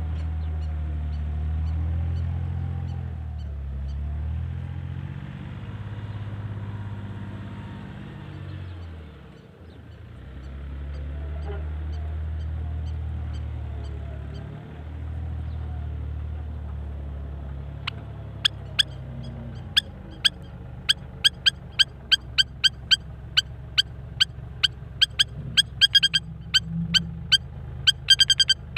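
A low, engine-like rumble that rises and falls in pitch. About two-thirds of the way in, a rapid run of short, sharp bird chirps starts, several a second, and becomes the loudest sound.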